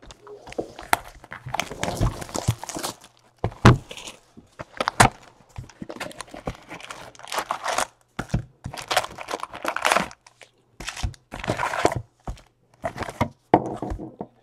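A cardboard box of 2017 Donruss baseball card packs being opened, then the foil-wrapped packs crinkling and clacking as they are taken out by hand and stacked, in a string of irregular rustles and sharp clicks.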